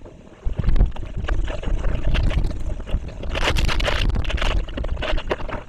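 Hurricane wind buffeting the nest camera's microphone: a deep gusting rumble with crackling taps, swelling into its strongest gust about three and a half seconds in.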